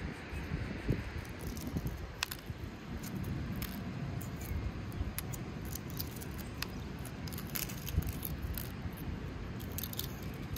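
Shell of a hard-boiled egg being cracked and peeled by hand: scattered small crackling clicks as pieces break off and drop onto a tray, over a steady low background rumble.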